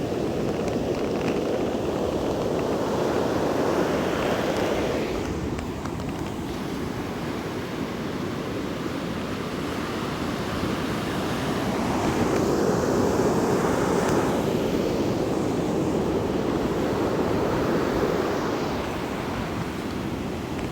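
Rough winter sea: heavy surf breaking and washing in, in two long swells, the first at the start and the second about halfway through, with wind buffeting the microphone.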